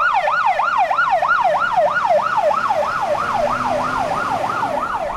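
Fire engine's siren sounding a fast yelp: a loud wail rising and falling in pitch about three to four times a second, signalling the truck setting off on an emergency run.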